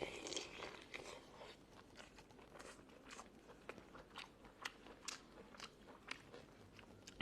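Close-miked chewing of Australian lobster meat: faint, irregular mouth clicks and small crunches.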